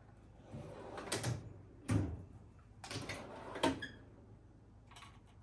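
Metal drawers of a Harbor Freight US General 44-inch steel tool box sliding open and shut on their runners, with a solid knock about two seconds in as a drawer closes.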